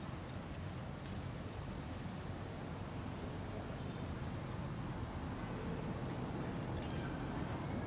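Steady outdoor insect chorus, one even high-pitched drone, over a low steady rumble.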